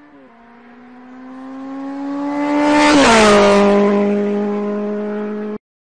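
A car passing by: a steady engine hum swells to its loudest about three seconds in, drops in pitch as it passes, then fades. It cuts off suddenly near the end.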